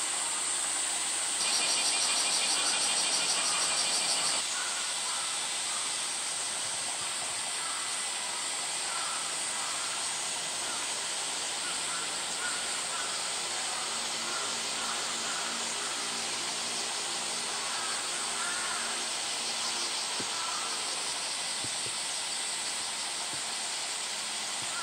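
Summer cicadas droning steadily at a high pitch. A louder, rapidly pulsing cicada call starts about a second and a half in and stops about three seconds later.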